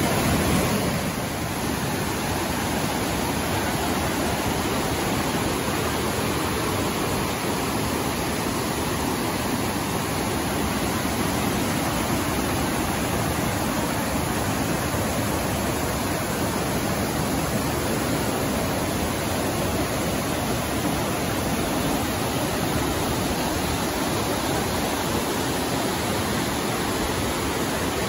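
Floodwater rushing down a swollen mountain creek: a loud, steady torrent of whitewater with no change in strength.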